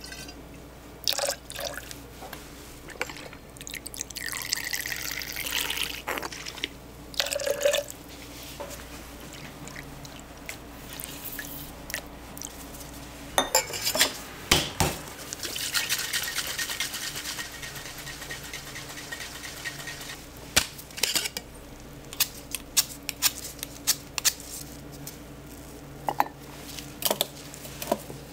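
Liquid pouring and dripping in two longer stretches, with sharp clinks and knocks of glassware and utensils that come thick and fast near the end.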